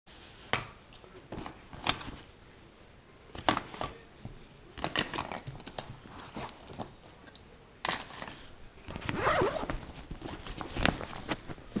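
Rustling fabric and nylon of a backpack being packed by hand, with scattered sharp clicks and knocks as things are put in, and a longer stretch of rustling about nine seconds in.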